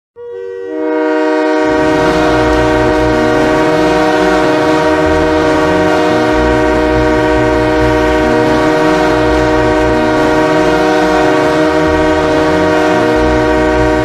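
Ice hockey goal horn: a loud multi-tone air horn sounding one long, unbroken blast, its several notes coming in one after another within the first second and then holding steady as a chord.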